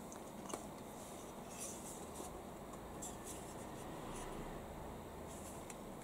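Faint scraping and rustling of a stiff piece of cardboard being handled and slid on a desk, with a light tap about half a second in.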